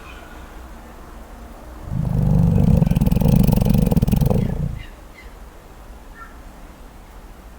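Koala giving one long, low, rattling snore that lasts about three seconds, starting about two seconds in.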